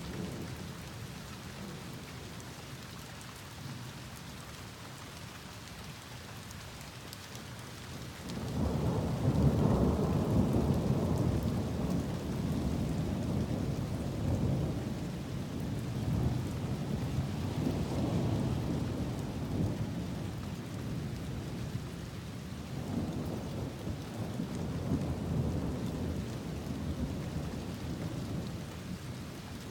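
Rain falling steadily; about eight seconds in, a loud, low rumble of thunder breaks in suddenly and rolls on in several swelling waves.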